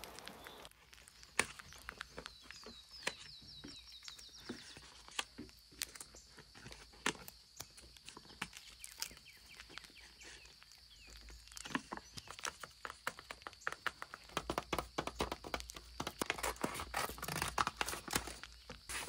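Close handling of a paper sticker sheet: crinkling, rustling and the crackle of stickers peeling off their backing, with scattered clicks. In the last few seconds the crackle becomes dense and continuous as scissors cut through a paper sheet.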